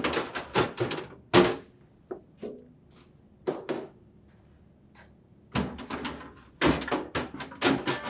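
Clear plastic crisper drawers of an LG refrigerator being pulled out one after the other: a run of hard plastic knocks and rattles as each drawer comes off its runners. The loudest knock comes about a second and a half in, with a second cluster from about five and a half seconds in.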